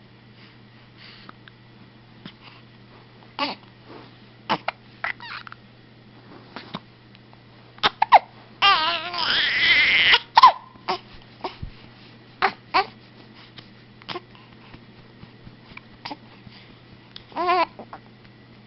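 Repeated hiccups, short sharp catches every second or two at uneven intervals. A longer wavering vocal sound comes about nine seconds in, and a shorter one near the end.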